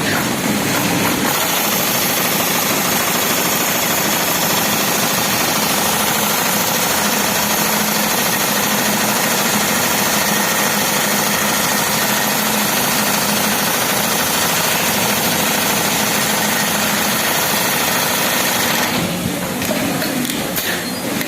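Computerised industrial pattern sewing machine with a large barrel shuttle hook, stitching at high speed with a dense, even mechanical clatter. The sound changes near the end as the cycle winds down.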